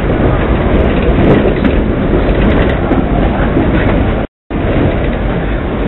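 Hong Kong double-decker electric tram running along street rails, a loud, steady running noise heard from on board. The audio cuts out briefly about four seconds in.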